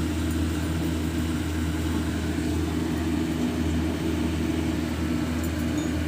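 Steady low machine hum, unchanging, like an engine or motor running.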